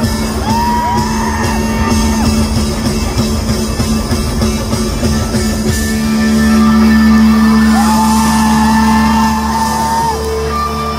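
Live rock band with electric guitar playing the end of a song in a large hall, settling into a long held closing chord about six seconds in.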